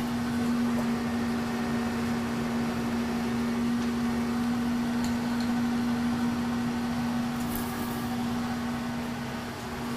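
Kearney & Trecker 2HL milling machine, set up as a lathe, running with a steady, even hum.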